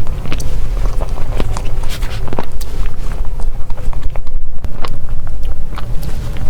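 Close-miked eating of desserts: biting and chewing, with many sharp, irregular clicks and smacks over a heavy low rumble.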